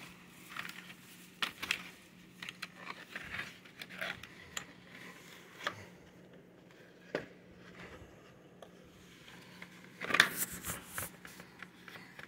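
Light clicks, taps and scratchy rustles of fingers handling a small cardboard pin backing card, with a denser scratchy rustle about ten seconds in.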